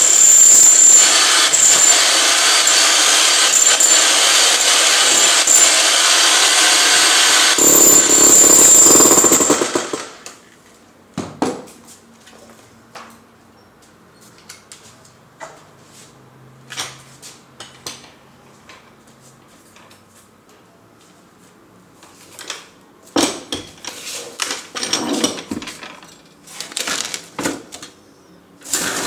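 Electric demolition hammer pounding into a concrete floor for about the first ten seconds, then stopping suddenly. Scattered knocks and clatter follow. The hammer starts again briefly right at the end.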